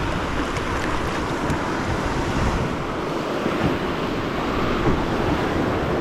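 Steady rush of moving river water, with wind noise on the microphone.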